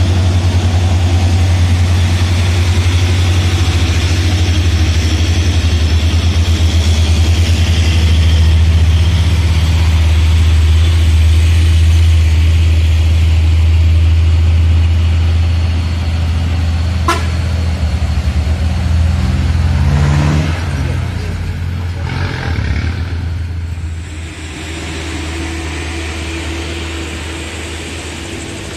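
Heavy truck diesel engine labouring up a steep climb, a loud low steady drone that eases off as it pulls away. A short rising rev comes about twenty seconds in.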